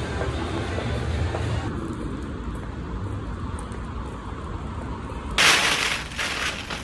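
Background noise with a low rumble while walking along a street, then about five seconds in a sudden loud crinkling rustle of a thin plastic carrier bag being pulled open.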